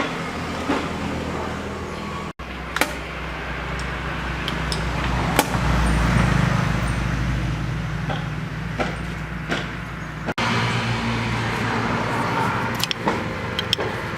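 A motor running steadily at a low pitch, with scattered sharp clicks and taps over it. The sound drops out abruptly twice.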